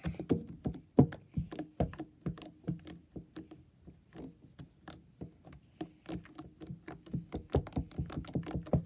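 Fluffy slime being squeezed, stretched and poked by hand, making a quick, irregular run of small sticky clicks and pops.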